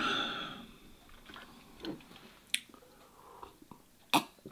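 Close-miked chewing of a mouthful of spicy instant noodles, with small wet mouth clicks. It opens with a breathy exhale from the heat and has a short sharp sound about four seconds in as he sips from a glass of milk.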